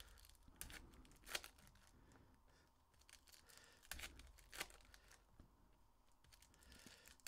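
Faint crinkling and tearing of foil trading-card pack wrappers being ripped open by hand, a few short sharp rips among quieter rustling, the loudest about a second in and again about four seconds in.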